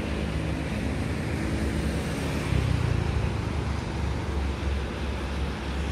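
Low rumble of an approaching CC206 diesel-electric locomotive, swelling about two and a half seconds in and again near the end, over a steady hiss of road traffic.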